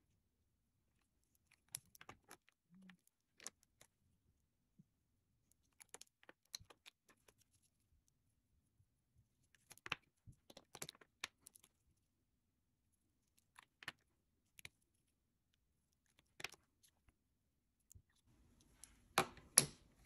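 Scattered small clicks and taps of lipstick tubes, caps and lip pencils being handled and set down on a wooden tabletop, the two loudest just before the end.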